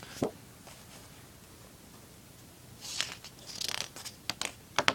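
Paper rustling and crinkling, with a few short crackles, as the pages of a picture book are handled and turned.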